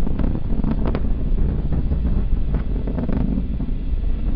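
Atlas V rocket's RD-180 main engine and solid rocket boosters heard from the ground during ascent: a loud, deep, steady roar with scattered sharp crackles.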